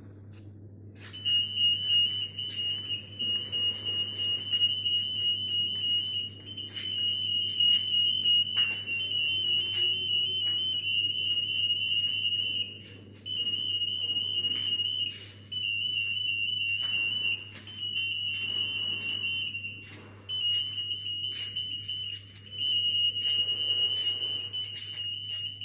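Acousto-magnetic (AM) anti-theft security gate alarm sounding a high, steady electronic tone that breaks off and starts again several times, the gate detecting an active AM label or hard tag.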